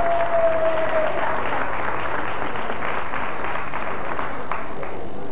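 Dense applause from an audience clapping steadily. A held tone, falling slightly in pitch, sounds over the first second, and a single sharp click falls near the end.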